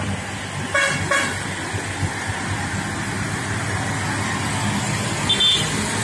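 Two short horn toots about a second in, over the steady running of a Hino truck's diesel engine as the loaded trucks drive past.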